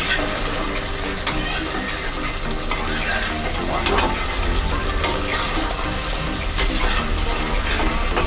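Thick dry-fish and potato curry sizzling in a kadhai over a high gas flame as its gravy is cooked down, while a spatula stirs and scrapes through it. A few sharp clicks of the spatula against the pan stand out, the loudest about two-thirds of the way in.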